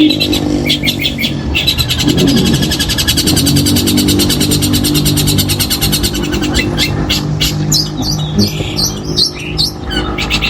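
Long-tailed shrike (cendet) singing a harsh, rapid chattering song: long runs of fast, evenly repeated high notes with a short break about one and a half seconds in, turning to more irregular notes in the second half. A low steady hum runs underneath.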